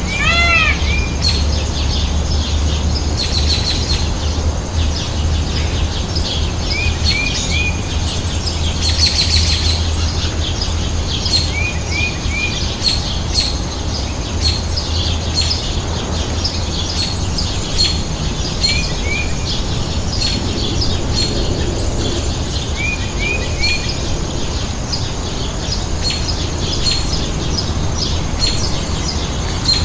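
Small birds chirping and twittering, with quick groups of three high arched notes every few seconds, over a steady low rumble.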